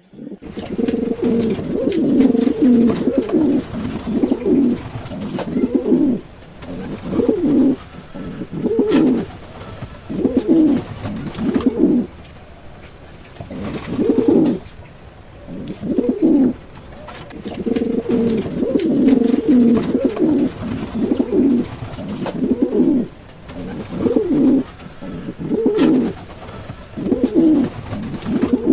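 Pigeons cooing over and over, low calls coming every second or two, with longer unbroken runs of cooing at the start and again just past the middle.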